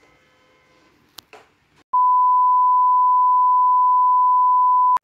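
A loud, steady 1 kHz test tone, the reference tone that goes with television colour bars, starts abruptly about two seconds in and holds level for about three seconds before cutting off. Before it there is only faint room tone with a light click.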